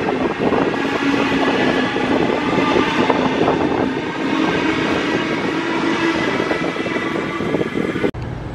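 A train passing on the rails: loud, steady rumble and rail noise with a faint hum, cutting off suddenly near the end.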